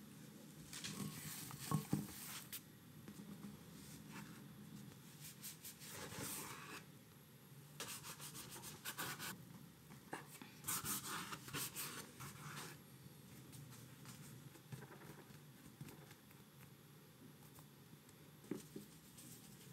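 Bun dough being handled on a wooden cutting board: irregular bursts of rubbing and scraping as it is cut into pieces with a knife and rolled into balls, with a couple of sharp knocks about two seconds in and quieter handling near the end.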